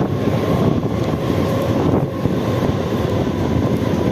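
Mumbai suburban EMU local train running at speed, its running noise heard from the side of the coach under heavy wind buffeting on the microphone, with a faint steady whine.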